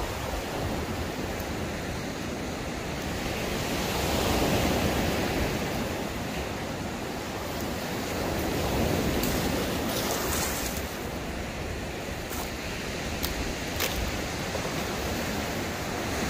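Surf washing in on a pebbly beach, a steady rush that swells louder about four seconds in and again about nine seconds in. A few faint clicks sound in the second half.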